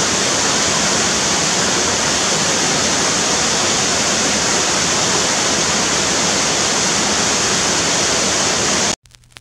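Steady, loud rush of water, even and unbroken, cutting off suddenly near the end.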